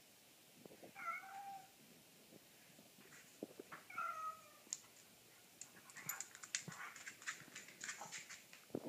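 Orange tabby cat meowing twice, two short calls about three seconds apart, then a scatter of light clicks and taps and a sharp knock at the very end.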